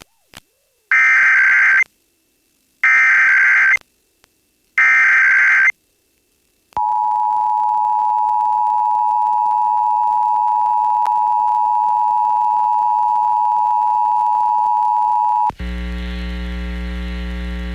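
Emergency Alert System SAME header: three one-second bursts of screechy digital data tones, then the two-tone EAS attention signal (853 and 960 Hz together) held steady for about eight seconds. Near the end this gives way to a low buzzing hum.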